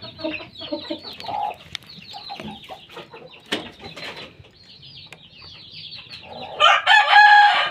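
Kampung chickens clucking with many short, high calls. Near the end a rooster breaks into a loud crow that is still going at the close.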